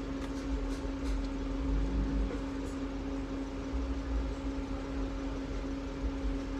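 Steady hum and low rumble of an idling car, heard from inside the cabin.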